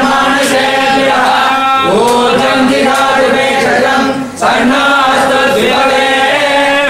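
Male voices chanting a Hindu hymn together in long held notes, with a brief break for breath about four seconds in.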